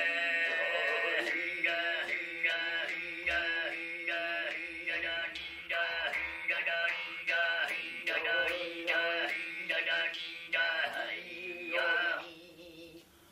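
Male overtone throat singing in the Altai style: a steady low drone held under a high, whistling overtone melody that moves in short repeated phrases, breaking off about a second before the end.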